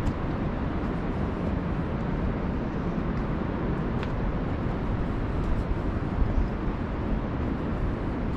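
A steady low rumble of outdoor noise with no pitch to it, marked by a few faint clicks.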